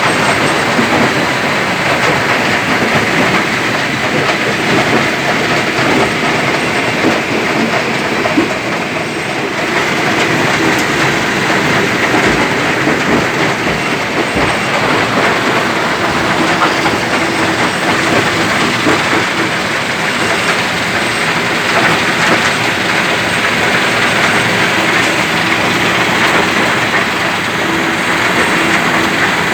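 Stone crusher machine running steadily and loudly, crushing rock into sand and gravel.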